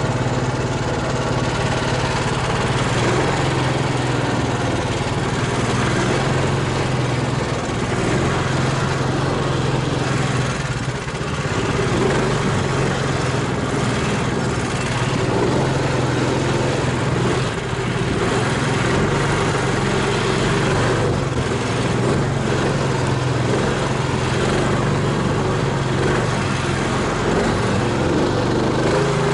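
Engine of a homemade low-pressure-tyre all-terrain vehicle running steadily as the machine drives along.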